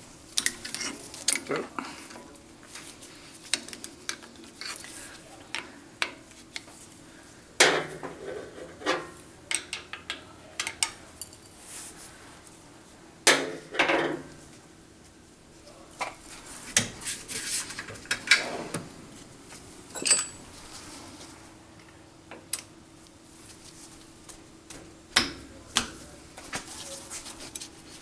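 Metal hand tools and small steel parts of a Grizzly G0752 lathe's cross slide clinking and knocking as it is taken apart by hand: irregular sharp clinks and taps in scattered clusters, over a faint steady hum.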